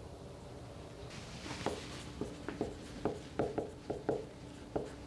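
Dry-erase marker writing on a whiteboard: about a dozen short, quick strokes, starting about a second and a half in.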